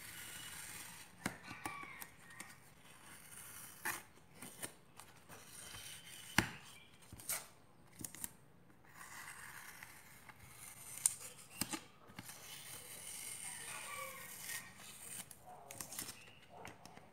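Paper template being peeled and torn off a clear plastic box lid: crinkling, tearing paper with scattered sharp clicks and taps, the loudest about six seconds in.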